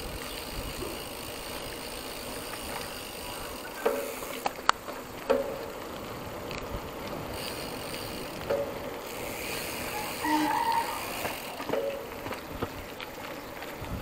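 Mountain bike ride: steady wind and tyre noise with the freewheel ratchet ticking, and a few short sharp clicks about four to five seconds in.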